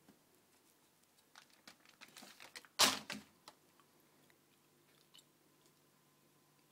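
A cat biting and crunching at food: a quick run of crunches and clicks lasting about two seconds, with one much louder crunch about three seconds in.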